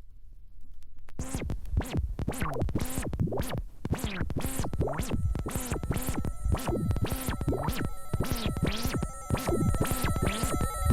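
Electronic music of synthesizer and musique concrète sounds: about a second in, a fast repeating pattern of sweeping electronic sounds starts, roughly two a second, and a steady high tone joins it about halfway through.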